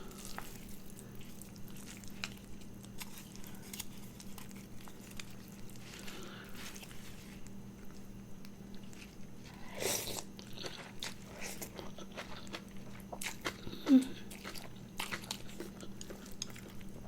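A person eating rice noodles close to the microphone: soft chewing and small wet mouth clicks over a steady low hum, with two short louder sounds, about ten seconds in and near fourteen seconds.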